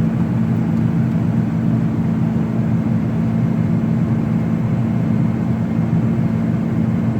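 John Deere 9600 combine harvester running steadily, a low, even engine drone with no change in speed.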